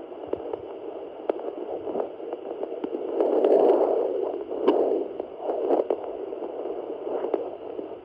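Handheld pocket fetal Doppler's speaker giving a whooshing, crackly static with scattered ticks as its probe searches a pregnant Labrador's belly for fetal heartbeats. The whoosh swells about three seconds in, then eases; the signal is not coming in clearly.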